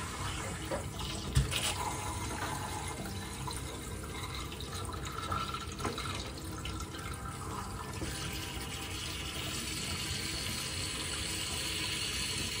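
Kitchen tap running steadily, water fed through a hose into a fish's body and splashing out into a stainless-steel sink, flushing the blood out of the fish. A single light knock about a second and a half in.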